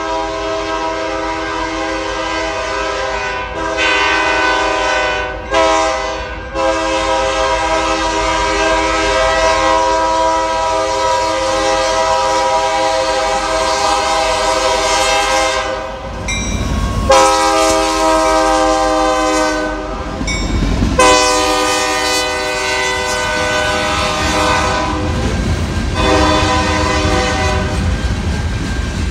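A CN freight diesel locomotive's air horn blowing several long, loud blasts with short breaks as the train approaches a grade crossing, the longest lasting about ten seconds. In the last few seconds the horn stops and the low rumble and clickety-clack of covered hopper cars rolling past take over.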